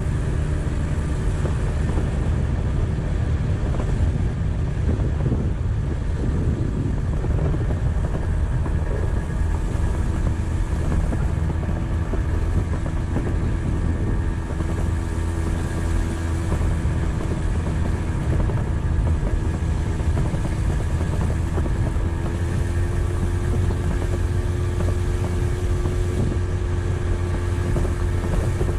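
Engine of a Kymco motorbike running at a steady cruising speed while riding, with a steady low rumble; its pitch rises slightly about two-thirds of the way through.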